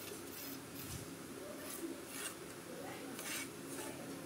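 Faint, intermittent rubbing and scraping from a telescopic carbon fishing rod being handled, its sections sliding against each other: a handful of short scrapes at irregular intervals.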